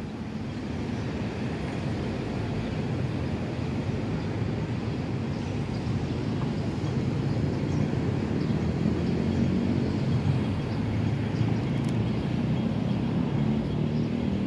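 Outdoor city street ambience: a steady low rumble of distant traffic, growing slightly louder over the stretch.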